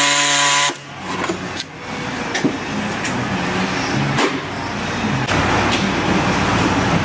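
Air-powered cutting tool trimming a plastic truck airbox, running steadily and then cutting off sharply under a second in. Afterwards come scattered clicks and knocks of the plastic airbox being handled, over a steady background noise.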